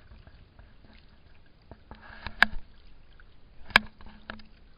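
Two sharp clicks about a second and a half apart, with a few fainter knocks around them, over faint steady background noise.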